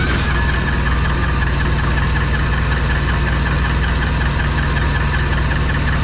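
An engine running steadily at idle, with an even beat and a steady high whine over it.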